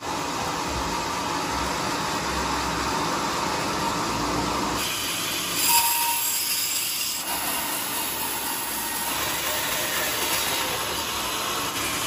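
Steady running noise of sawmill machinery, a large band saw among it. The sound changes about five seconds in, with a short louder burst and a brief high ring around six seconds.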